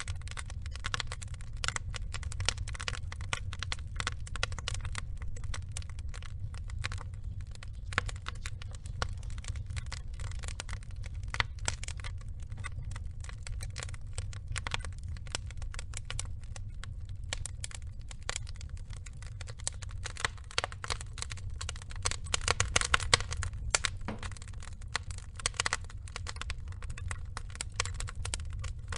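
Wood logs burning, crackling and popping in quick irregular clicks over a low steady rumble, with a denser, louder run of crackles a little over twenty seconds in.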